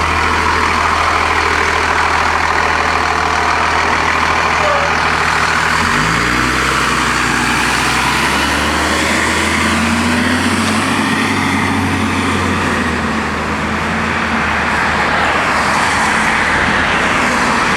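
Blue Bird CS transit bus's Cummins ISC diesel engine running, heard inside the bus with steady road and cabin noise. About six seconds in the engine note rises and holds at a higher pitch as the engine speeds up.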